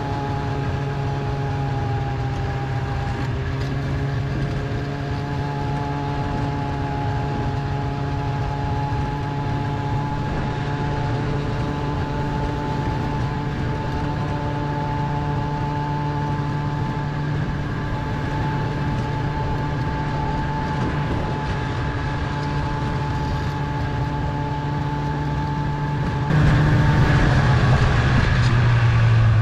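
Polaris snowmobile engine running steadily under way, heard from the towed sled behind it. About three seconds before the end it suddenly gets louder and drops in pitch.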